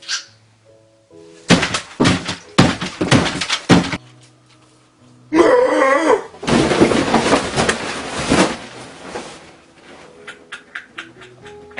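Light background music under a run of clattering, then a loud yell a little past halfway, followed by a long crash as the dinner table with its plates is knocked over and the camera falls.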